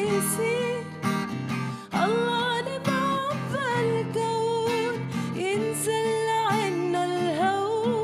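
A woman singing a Christmas hymn solo with long, wavering held notes, accompanied by strummed acoustic guitar. Her phrases break off briefly about two seconds in and again about five and a half seconds in.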